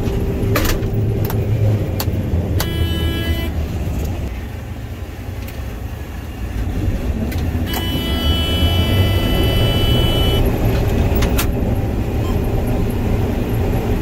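John Deere combine running with its corn head engaged, heard inside the cab. An electronic warning beep sounds twice at a steady pitch, briefly about three seconds in and again for about three seconds from about eight seconds in, with a few sharp clicks along the way.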